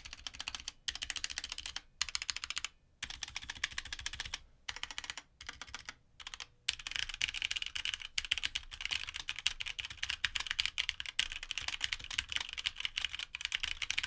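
Typing on a HyperX Alloy Origins 65 mechanical keyboard with HyperX Red linear switches and thick PBT keycaps: rapid keystroke clacks in short runs with brief pauses, then steady fast typing from about halfway through. It has a higher-pitched sound from its open-frame, floating-keycap design.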